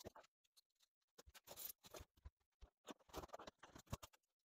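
Faint scratching and crunching of foam board and model track being pried up and pulled apart by hand, in a few short bursts with scattered clicks.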